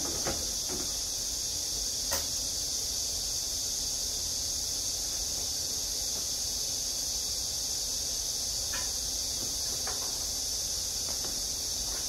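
A steady high-pitched hiss, with a few faint clicks.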